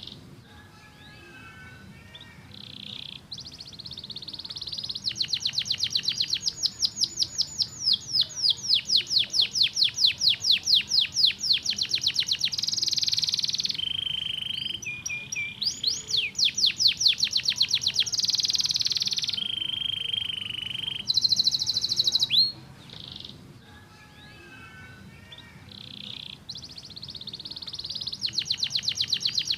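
Domestic canary singing: long fast trills of rapidly repeated high notes, broken by a few brief steady held notes. The song drops to a softer, quieter warble at the start and again about two-thirds of the way through, then builds back into loud trills near the end.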